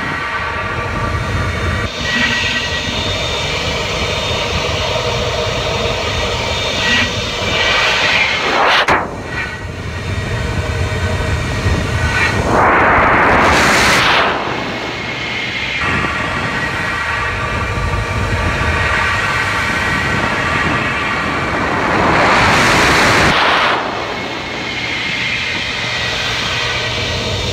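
Opticwash smartphone-cleaning machine running through its wash cycle, heard from inside its chamber: a steady mechanical whir with hissing water spray. Two louder rushing blasts, each a second or two long, come midway and again later on.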